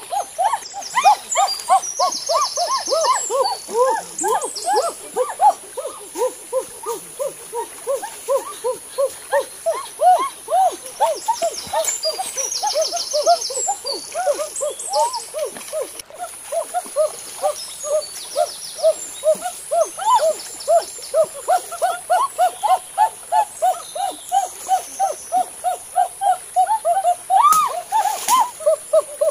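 A long, unbroken run of short hoot-like notes, about three a second, wandering up and down in pitch over a steady high hiss. Near the end there is a brief splash of water.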